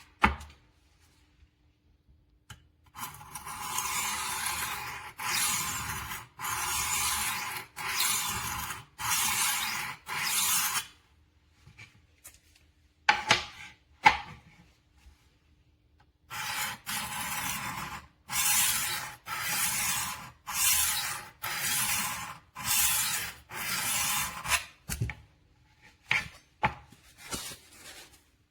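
HORL 3 Cruise rolling knife sharpener's diamond disc rasping along a steel knife edge, rolled back and forth in quick even strokes about one a second. There are two runs of strokes with a pause between them, and a few sharp clicks in the pause and near the end.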